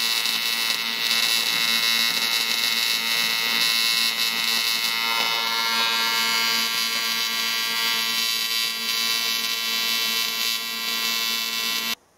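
Welding arc on an aluminium casting, making a steady harsh electric buzz that cuts off suddenly near the end.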